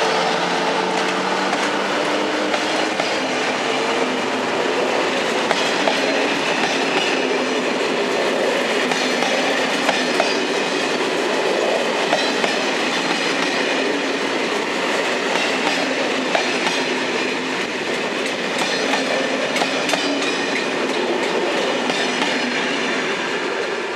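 SNCF BB 26000-class electric locomotive passing, with a steady tone from the locomotive fading over the first few seconds, then Corail passenger coaches rolling by with a continuous wheel rumble and clickety-clack over the rail joints.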